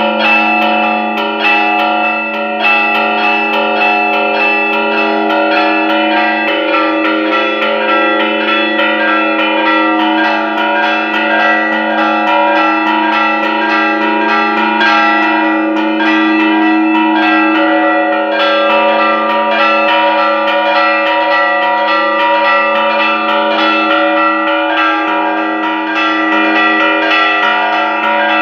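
Church bells rung by hand in a repique: rapid, continuous strokes with the bells' tones ringing on and overlapping. It is the festive peal rung for a patron-saint feast's novena.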